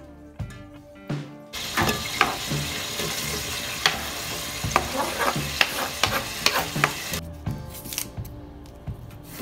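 Chopped red onion sizzling loudly in hot oil in a steel pot while a spatula stirs it, with sharp clicks and scrapes against the pot. The sizzling starts about a second and a half in and cuts off abruptly around seven seconds. Background music with a steady beat plays throughout.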